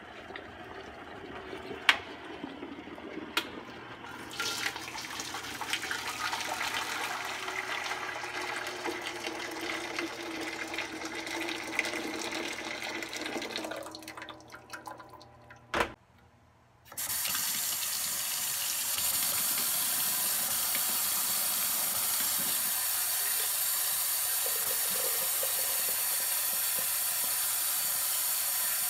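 A sharp click about two seconds in, then hot water poured from an electric kettle into a large stainless steel stockpot. After a brief silence, a kitchen faucet runs steadily into a sink while a glass mason jar is washed under it.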